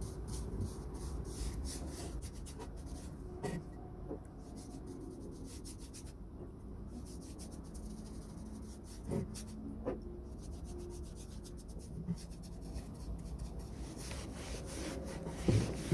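Paintbrush bristles rubbing and scraping over a wooden mangle roller as stain is brushed on, with a few light knocks and the loudest near the end.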